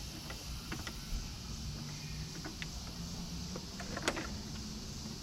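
Light handling noises as a heavy power cable is routed through an engine bay: faint rustles and small clicks, with one sharper click about four seconds in, over a steady low rumble.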